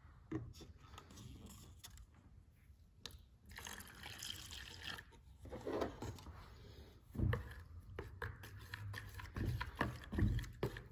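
Hot water poured from a cup into a mixing bowl of clear glue, then a metal spoon stirring the mixture, with soft knocks and scrapes against the bowl.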